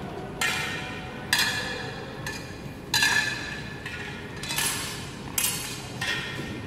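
Steel sparring swords and bucklers clashing: about six sharp metallic strikes, each with a brief ring. The loudest come about a second and a half and three seconds in.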